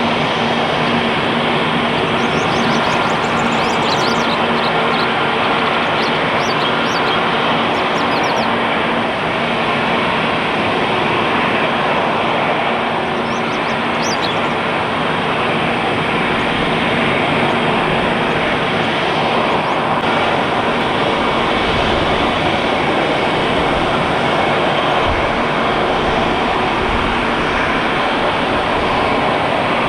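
Airbus A320 jet engines running at the runway with a steady, loud roar of noise, and a faint steady hum beneath it.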